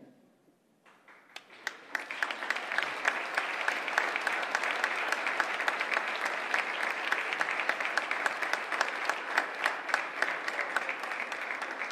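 Audience applauding. The clapping starts about a second in and keeps up steadily.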